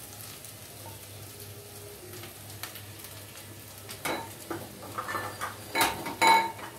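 A spoon scraping and clinking against a kadhai of poha on the stove: a few sharp knocks with a brief metallic ring from about four seconds in, loudest near the end. Before that there is only a faint steady hiss.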